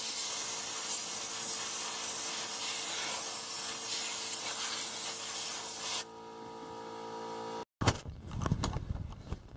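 Compressed-air blow gun hissing steadily as it blasts spilled antifreeze off the oil dipstick tube's funnel, cutting off sharply about six seconds in. A few knocks and rattles follow near the end.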